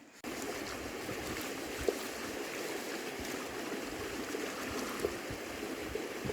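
Running water rushing steadily, with a few faint knocks, starting abruptly just after the beginning.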